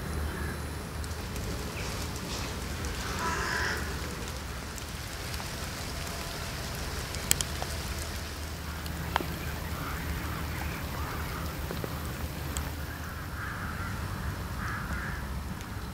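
Lakeside outdoor ambience: a steady low rumble with distant birds calling a few times, and two short sharp clicks in the middle.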